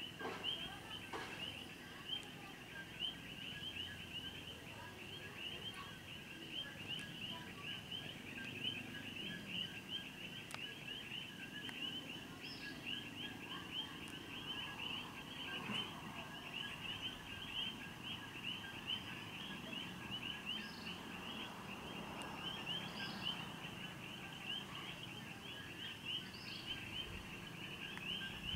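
A steady chorus of rapid, high-pitched chirping. Underneath it, the faint low rumble of the jet airliner's engines swells in the middle and fades again.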